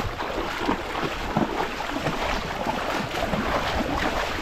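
Footsteps splashing through ankle-deep seawater, irregular sloshes over gentle surf washing onto sand.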